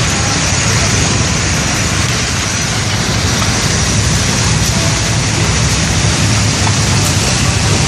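Steady, loud rushing noise with no breaks or distinct events.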